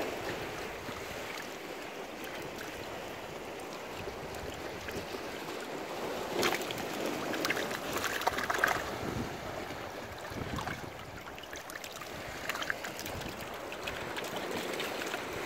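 Shallow sea water washing and sloshing through a rocky gully, a steady rushing wash. A run of sharper crackles and splashy clicks comes about halfway through, with another brief one a little later.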